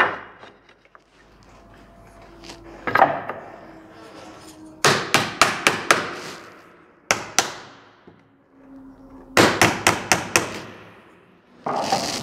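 Woodcarving chisel struck with a small hammer, cutting into a wooden moulding strip: quick runs of sharp taps, several a second, broken by short pauses.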